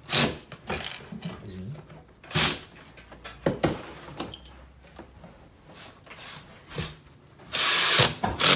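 Cordless drill driving a screw through a white plastic fitting into a shoe-cabinet panel, running in one short burst for under a second near the end. Before it there are a few sharp single knocks.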